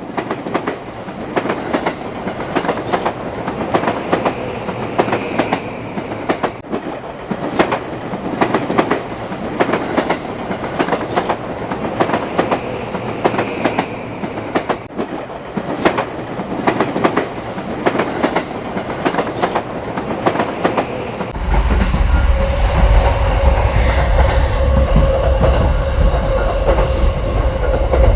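A train running on the rails, its wheels clicking and clacking over the joints. About 21 seconds in, a deep rumble and a steady hum come in and the sound grows louder.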